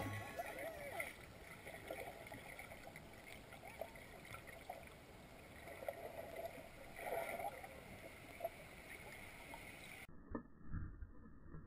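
Faint, muffled water sound picked up by an action camera held underwater: a low hiss with soft, scattered gurgles. About ten seconds in it changes to duller, muffled low thumps of a swimmer moving in the water.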